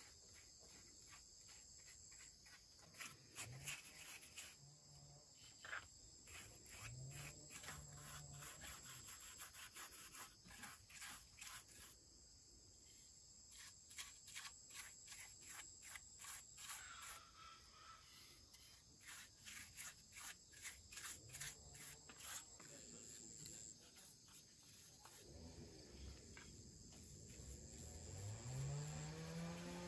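Faint, steady chirring of insects, with soft quick taps and scrapes of a paintbrush on wooden sticks through the middle, and a low rising-and-falling tone near the end.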